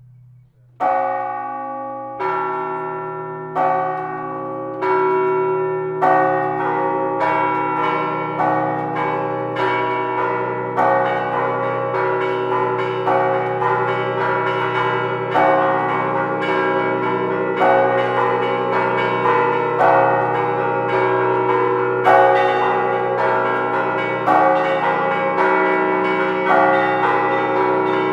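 Church bells start ringing about a second in: a few slow single strokes, then several bells of different pitches in a quicker, overlapping peal.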